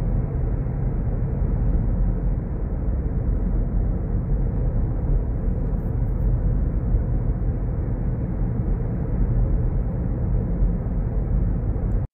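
Steady low rumble of a car driving on an open road, heard from inside the cabin: tyre and engine noise with no distinct tones, cutting off abruptly near the end.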